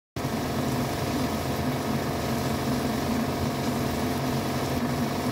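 Kitchen cooking sounds from a steel pot of diced beef and onions on a gas hob: a steady low hum with a hiss over it. It starts abruptly just after the beginning and holds even throughout.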